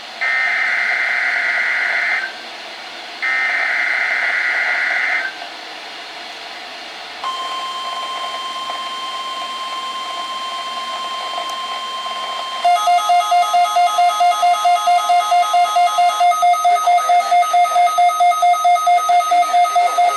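NOAA Weather Radio SAME header, two more screeching data bursts of about two seconds each, a second apart, which open an alert or weekly test. Then the steady 1050 Hz warning alarm tone, held for about five seconds. Then loud, rapid electronic alarm beeping, about four beeps a second.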